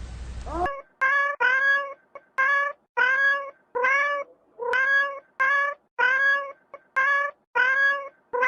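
A cat meowing over and over in short, high, evenly pitched mews, about two a second.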